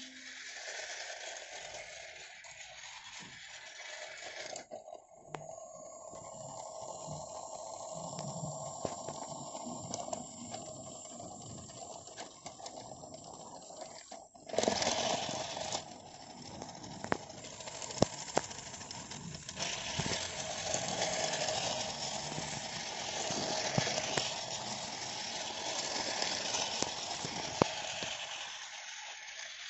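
Battery-powered toy train running on plastic track: a steady electric motor whine with the wheels rattling and clicking over the rails. About halfway through there is a short, louder clatter as the locomotive is handled.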